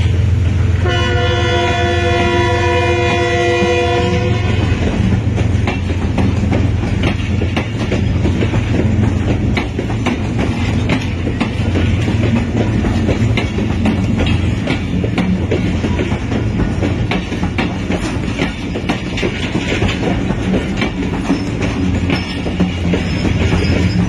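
A diesel locomotive's air horn sounds one chord-like blast of about three seconds near the start. It is followed by a train's steady rumble with wheels clicking over rail joints. The horn starts again at the very end.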